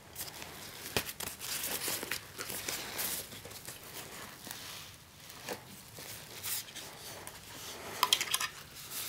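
Rustling and crinkling of a padded nylon camera backpack as hands lift an LCD viewfinder out of its compartment, with a sharp knock about a second in and a few more sharp handling sounds near the end.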